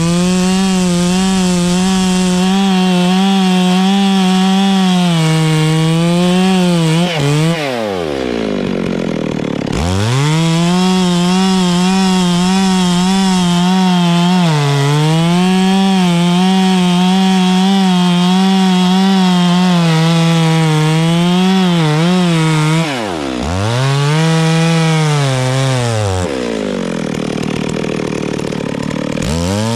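Two-stroke chainsaw running at high revs, cutting into wood, with a steady high engine note. Twice the throttle is eased off and the engine winds down before revving back up: about eight seconds in, and again about twenty-three seconds in.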